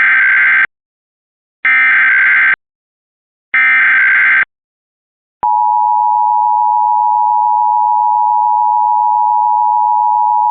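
Emergency Alert System SAME header: the end of one burst of digital data tones and two more bursts, about a second apart. Then, a little past halfway, the steady two-tone EAS attention signal (853 and 960 Hz together) comes in and holds.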